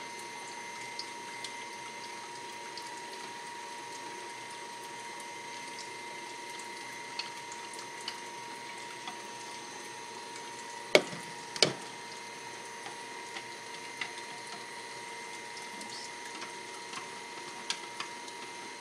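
Food strainer running with a steady motor hum and whine while it presses cooked vegetables, with light ticks now and then and two sharp knocks close together about halfway through.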